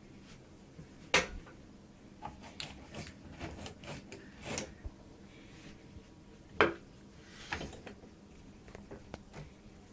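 Clicks and knocks of a power lead being handled and pushed into the socket of a PC power supply, with two louder knocks, about a second in and just past halfway.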